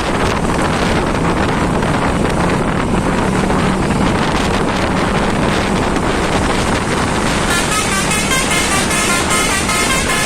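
Loud road and wind noise from vehicles moving at speed, then, about seven and a half seconds in, a Basuri telolet bus horn starts playing its melody: several pitched notes stepping up and down a few times a second.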